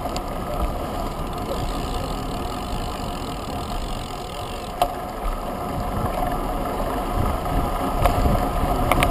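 Wind buffeting the microphone of a camera on a moving road bike, over steady tyre and road noise, with a few short sharp clicks around five, eight and nine seconds in.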